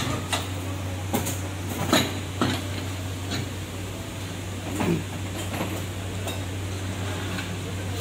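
Scattered metallic clinks and knocks from tyre-changing work on a wheel at a tyre machine, over a steady low hum.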